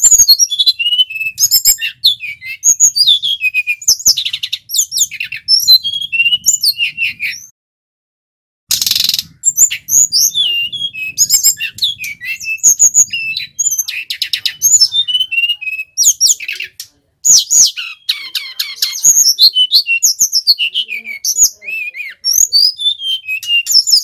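Male brown-chested jungle flycatcher (sikatan rimba dada coklat) singing a fast, varied song of high chirps and quick whistled slurs, with a break of about a second a third of the way in.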